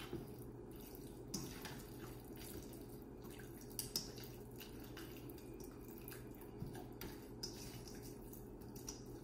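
Faint wet clicks and light taps of marinated beef steaks being turned and pressed by hand in a stainless steel bowl, over a low steady hum.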